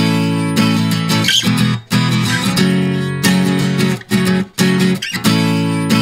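Background music led by guitar, playing held chords with a few brief breaks.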